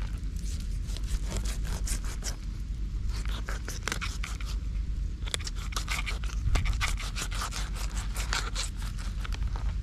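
A knife slicing and scraping along a barramundi as it is filleted on a plastic cutting board: a fast, irregular run of short scraping strokes, busier in the second half.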